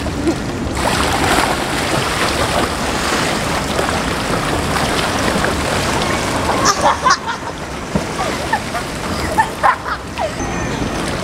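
Swimmers splashing through pool water doing front-crawl laps: a steady wash of splashing, with a few short voice sounds in the second half.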